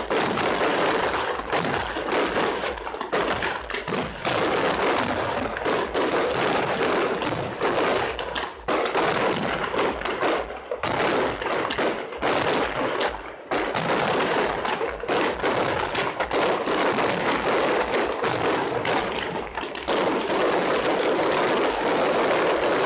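Fireworks display: a dense barrage of rapid bangs and crackling, near-continuous, merging into an unbroken crackle in the last few seconds.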